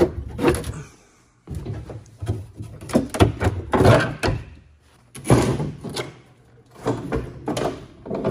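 A run of about six rattling metal clunks and scrapes as the old Skiroule snowmobile's hood latch is worked and its fibreglass hood is lifted open.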